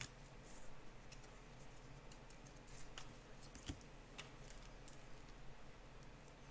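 Faint scattered clicks and scratches of trading cards being handled and slid against each other, over a low steady hum.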